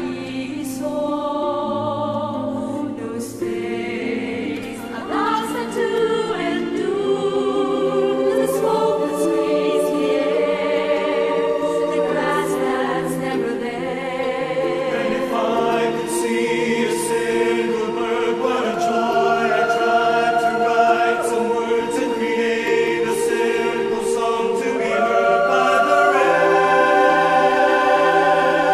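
Background choral music: a choir singing long, held notes in several voices, growing a little louder near the end.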